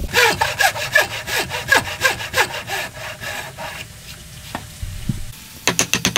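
Hand saw cutting wood in quick back-and-forth strokes for the first few seconds. After a short quieter gap, rapid even taps of a mallet driving a chisel into the wood start near the end.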